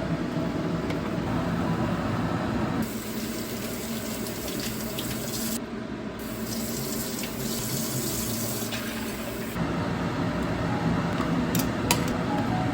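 Water running from a kitchen tap into a sink, strongest from about three seconds in until about nine and a half seconds, with a few sharp clicks near the end.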